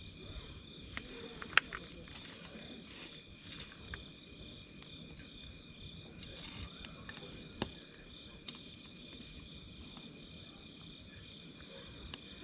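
Wood campfire crackling, with scattered sharp pops, the loudest about one and a half seconds in. A steady, pulsing chorus of chirping insects runs underneath.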